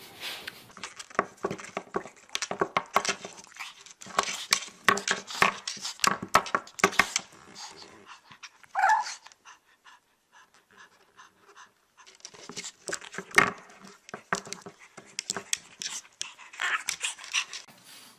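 A dog panting in quick, rapid bursts, with a short pitched sound about nine seconds in.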